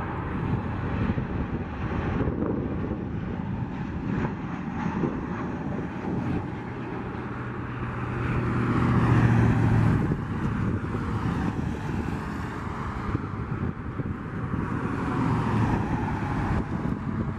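Jet engines of a Southwest Boeing 737 on landing approach, passing close by and loudest about halfway through, then fading as it touches down. Gusting wind buffets the microphone.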